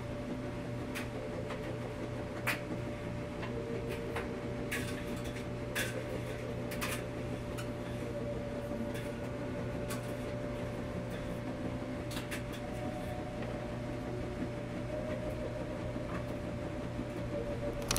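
Steady hum of laundry machines running, with a few scattered light clicks and knocks.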